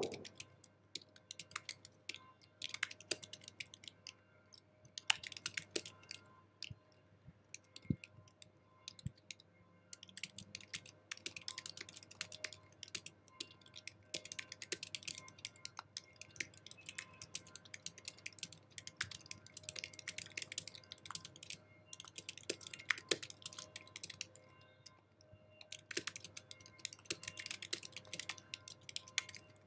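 Fast typing on an Apple keyboard: a rapid, continuous run of light key clicks, broken by a couple of brief pauses.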